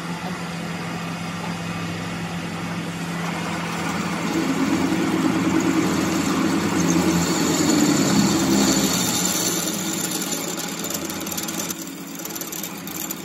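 Metal lathe running with a steady motor hum while a twist drill bores into the end of a spinning metal workpiece. The cutting noise grows louder from about four seconds in and eases off after about nine seconds.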